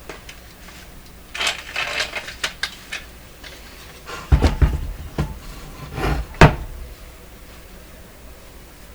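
Hands working cloth rags and the speaker: a burst of rustling about a second and a half in, then a run of knocks and bumps between about four and six and a half seconds in, the last the loudest.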